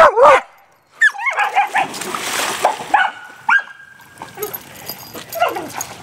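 A dog yipping and whining repeatedly, short high calls with one held whine in the middle. About two seconds in comes a splash, as of a dog jumping into a swimming pool.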